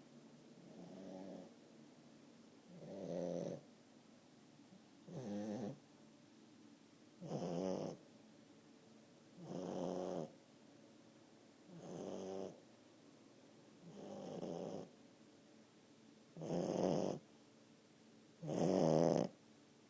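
A 10-month-old French bulldog snoring in its sleep: nine snores, one about every two seconds. The later snores are louder.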